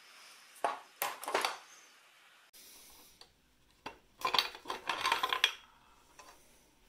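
Metal parts of a Suzuki Hayabusa engine clinking and rattling as they are handled and pulled from the engine cases during teardown: a few sharp clinks in the first second and a half, then a longer run of clattering from about four seconds in.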